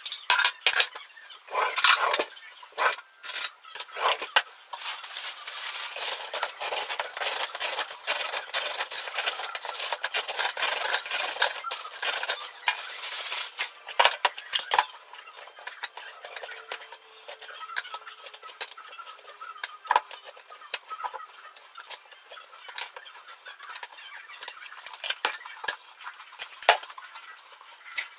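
A knife saws through a crusty baguette on a wooden chopping board, a dense crunching scrape with many small clicks. About halfway through it turns to quieter knife scraping as butter is spread, with scattered clinks and sharp knocks of the knife and bread on china plates.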